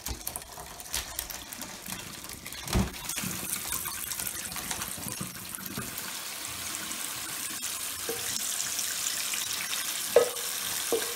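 Hot whey and paneer curds pouring from a steel pot into a cloth-lined strainer in a sink, while a kitchen tap runs steadily into the sink. There is a knock about three seconds in, and near the end a spoon clinks against the steel pot a couple of times as the last curds are scraped out.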